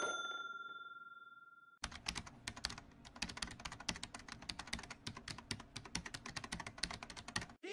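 The ringing tail of a bell-like ding dying away, cut off about two seconds in, then rapid keyboard-typing clicks that run on until just before the end, a typing sound effect under an intro title card.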